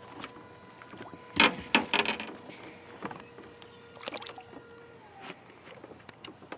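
Irregular knocks and clatter from handling in a small fishing boat. A loud cluster comes about a second and a half in, and a few more knocks come around four seconds in.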